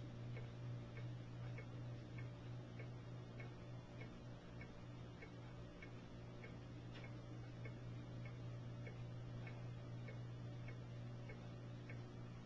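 Faint, regular ticking at about two ticks a second, over a steady low hum.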